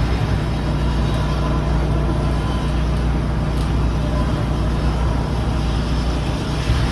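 Steady low mechanical rumble with a constant hum, unchanging in level.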